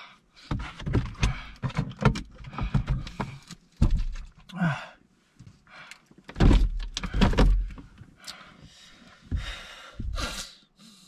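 Irregular knocks, deep thumps and rustling inside a car cabin as people shift about in their seats, with one heavier thump cluster a little past the middle. Near the end, a plastic water bottle is handled.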